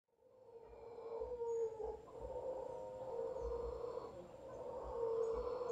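A troop of mantled howler monkeys howling: a long, low, steady-pitched droning call that fades in over the first second, then swells and eases in loudness.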